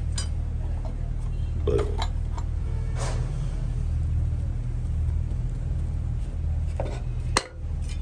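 Light clinks and knocks as sand-casting tools are handled: patterns on a moulding board and a steel moulding flask. There is a steady low machine hum underneath, and a single sharp clank comes near the end.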